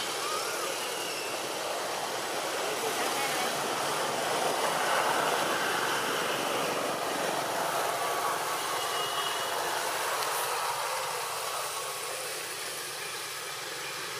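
Steady outdoor background rush, swelling slightly in the middle, with a few short high chirps.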